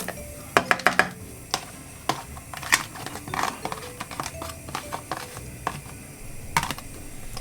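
Irregular clicks and clinks as mixed vegetables are tipped into a pot of water, over faint background music.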